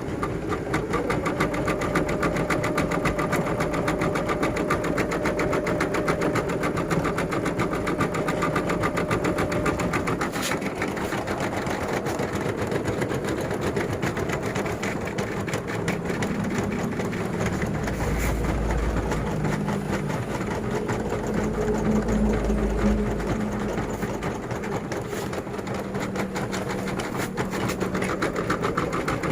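EM200 computerized embroidery machine stitching a design into a garment, its needle running in a fast, steady rhythm of strokes.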